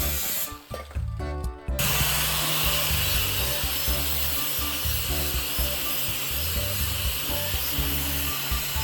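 A power tool running steadily, starting about two seconds in, over background music with a steady bass line.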